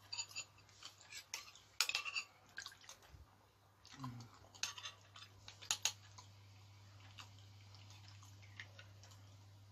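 Metal spoon scraping and clicking against a cooked beef-foot bone and its bowl while digging out the marrow: a cluster of short clicks and scrapes in the first two seconds and a few more around five to six seconds.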